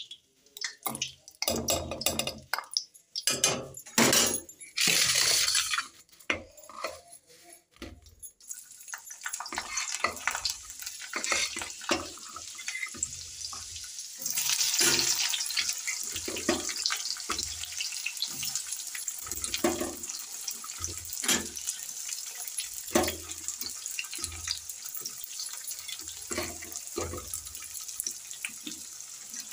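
Utensils clattering and a spoon knocking against steel for the first several seconds, then hot oil sizzling steadily in a kadhai. About halfway the sizzle swells louder as chopped onions are dropped into the oil to fry, with scattered clicks of stirring after.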